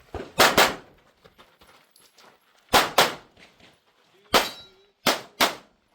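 Pistol shots fired in quick pairs, about three double taps, each pair a fraction of a second apart. A single shot about four and a half seconds in carries a short metallic ring, like a steel target being hit.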